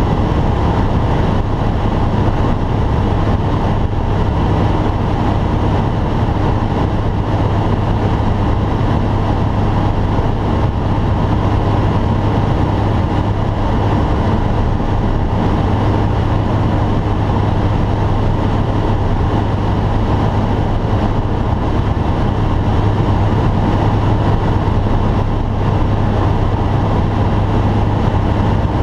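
Steady drone of a light aircraft's engine and propeller, heard inside the cabin, with a constant low hum over airflow noise.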